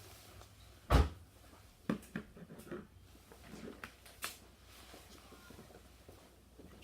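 A sharp clunk about a second in, then a few lighter knocks and clicks: the plastic air-filter cover and housing of a walk-behind lawn mower being handled and fitted.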